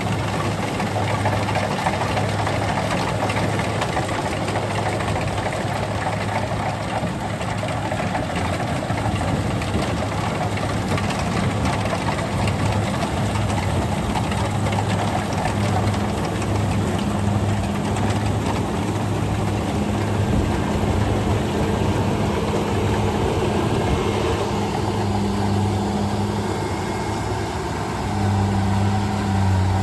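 Kubota DC-70G rice combine harvester running steadily, its diesel engine giving a constant low hum under broad machine noise.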